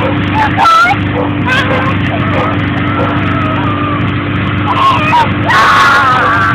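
Snowmobile engine running steadily at a constant speed, with high voices over it and a loud high-pitched call near the end.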